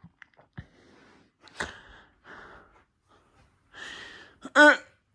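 A person breathing and gasping close to the microphone, with a few faint clicks. About four and a half seconds in comes a short, loud voiced grunt or exclamation.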